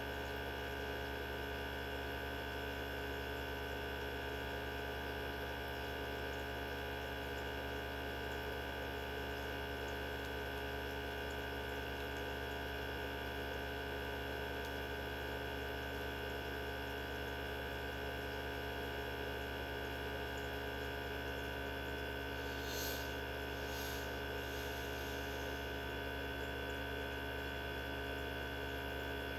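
Mini benchtop centrifuge running at a steady speed: an even electric motor hum and whine made of several constant tones. Two faint clicks about two-thirds of the way through.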